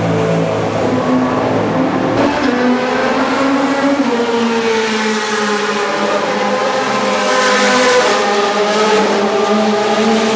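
Race car engines passing on a wet circuit, more than one at a time, their pitch falling and rising as they lift and accelerate. In the second half a rush of tyre spray swells as a car goes by.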